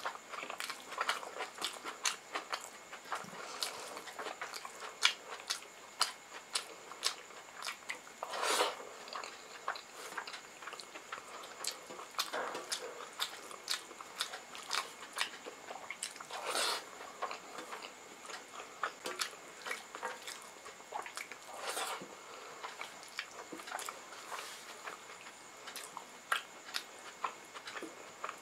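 Close-up eating sounds of rice and curry eaten by hand: chewing with many short mouth clicks and smacks, and a few longer, louder sounds spread through. Fingers gather food from a brass plate between mouthfuls.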